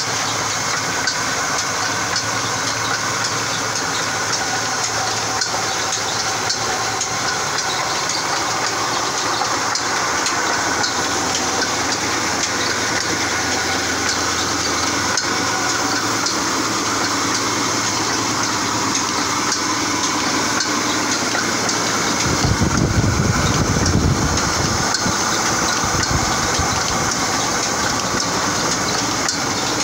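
Flour mill (chakki) and oil expeller machinery running steadily with a constant mechanical drone and hiss; a heavier low rumble swells for a couple of seconds about three-quarters of the way through.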